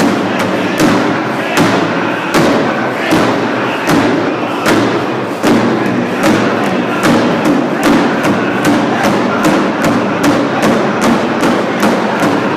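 A group of singers with a large drum struck in unison on a steady beat. The beat quickens in the second half.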